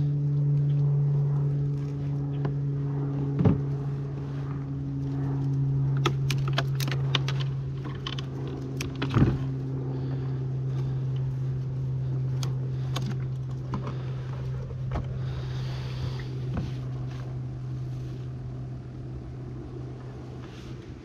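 Steady low hum of a small electric air pump, the live-bait aerator, with scattered clicks, snaps and knocks of mangrove branches and cord handled against a plastic kayak hull while the kayak is tied off.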